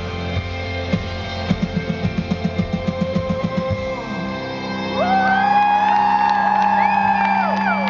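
Live rock band playing the end of a song: a fast run of drum hits, then about five seconds in, loud held notes that slide up and down in pitch over a sustained chord.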